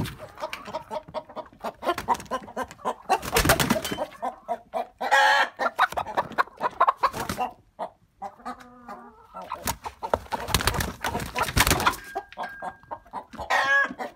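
Several chickens clucking and squawking, with a few loud bursts of rapid clicks and knocks among the calls.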